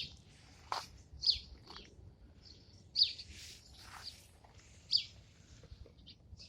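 A bird calling repeatedly outdoors: short, sharp chirps that sweep downward in pitch, the loudest about every two seconds, with fainter chirps between them.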